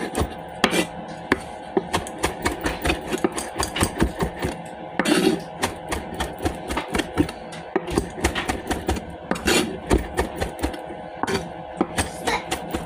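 Kitchen knife chopping cilantro on a cutting board: quick, irregular knocks, several a second.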